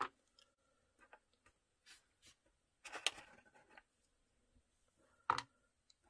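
Faint, scattered clicks and taps of rubber-and-plastic keycaps being picked out of a plastic tray and set down on a keyboard, with a small cluster of taps about three seconds in.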